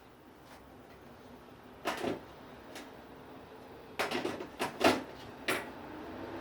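A handful of sharp clacks and knocks from hard objects being handled, some in quick clusters, over a faint steady hum.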